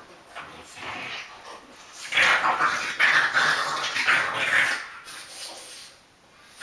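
Two French bulldogs play-wrestling and vocalizing, loudest from about two seconds in until nearly five seconds, then quieting as they settle down.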